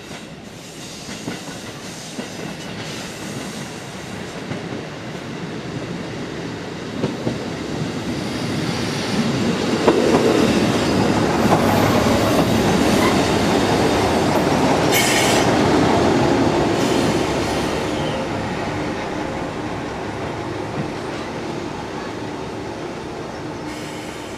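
Two-car JR Tokai KiHa 11 diesel railcar train pulling in: the running noise of engines and wheels swells as it passes close, with a few clicks over rail joints and a brief high squeal near the loudest point, then eases off as it slows to a stop.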